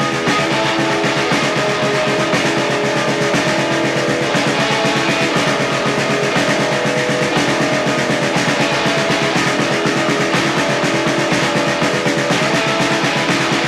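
Live rock band playing an instrumental passage without vocals: electric guitars over a steady drum-kit beat.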